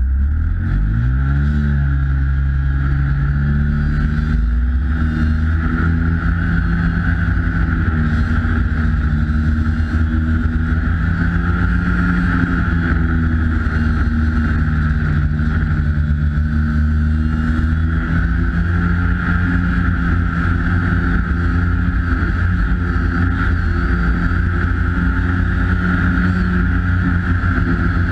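Polaris 340 Classic snowmobile's two-stroke engine accelerating in the first couple of seconds, then running at a steady riding speed with small rises and falls in pitch.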